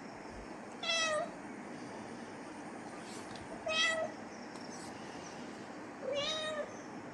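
Kitten meowing three times, short high-pitched meows about two and a half to three seconds apart.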